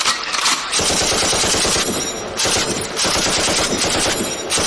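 Machine-gun fire sound effect from a DJ sound-check remix: a rapid, dense string of shots that starts about a second in, with short breaks near two and four seconds.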